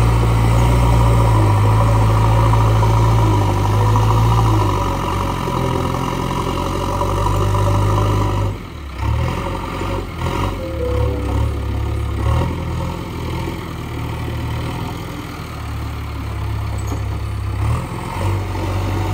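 JCB 3DX backhoe loader's four-cylinder diesel engine running as the machine works soil, its note and loudness rising and falling with the load. It drops briefly about eight and a half seconds in.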